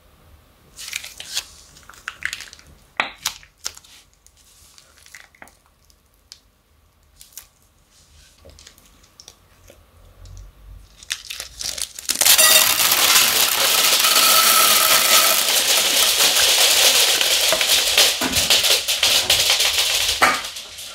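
Plastic piping bag crinkling as it is handled. About twelve seconds in, a long, loud, dense rattle of pearl beads pouring out of the bag onto a glass bowl, which stops shortly before the end.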